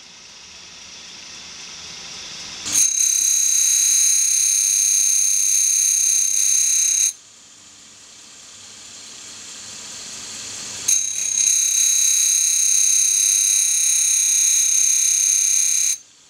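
Tool grinder's cup wheel grinding the secondary clearance angle on the flutes of a 3/4-inch four-flute end mill: two passes of a loud, high-pitched whine, each about four to five seconds long, starting about three seconds in and again about eleven seconds in. Between the passes there is a much quieter hiss that slowly rises.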